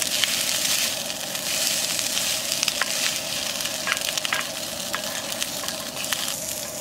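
Fried rice sizzling in a two-handled metal pan, stirred with a wooden spatula that scrapes and taps the pan now and then.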